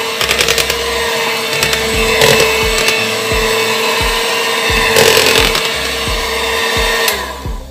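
Electric hand mixer running steadily, its beaters churning thick cake batter in a plastic bowl, with a few knocks of the beaters against the bowl. It switches off near the end.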